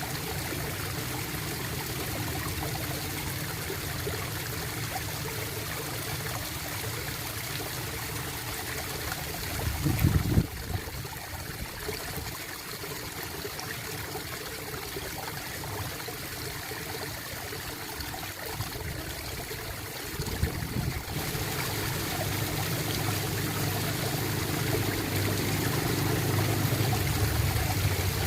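Water trickling and gurgling steadily, with a deep rumble underneath. A loud low thump comes about ten seconds in and a weaker one about twenty seconds in.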